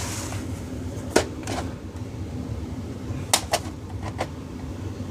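A VHS tape being turned over and handled, giving a few light clicks and taps over a steady low hum.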